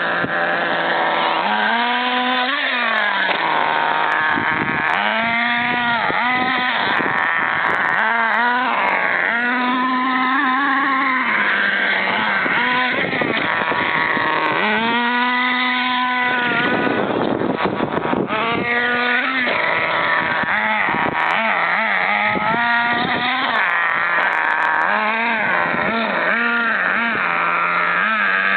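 Volcano SV nitro RC truck's small two-stroke glow engine revving hard in repeated throttle bursts, its high whine climbing and falling back with each one over a steady idle. A rougher, noisier stretch comes about 17 seconds in.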